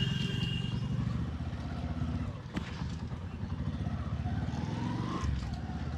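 Motorcycle engine running under way, heard through a lapel mic inside the rider's open-visor helmet. Its pitch climbs over about a second and drops just after five seconds in.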